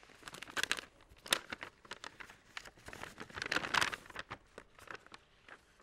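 Paper evidence collection envelope rustling and crinkling as it is handled with gloved hands, with scattered small clicks and the loudest rustle about three and a half seconds in.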